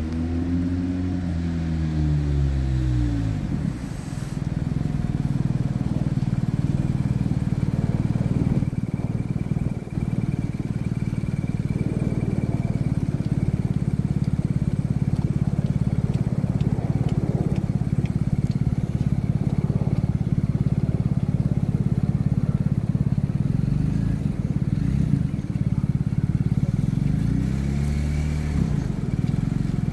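Diesel train engine idling with a steady low hum; near the start and again just before the end its pitch rises and falls briefly as the engine revs.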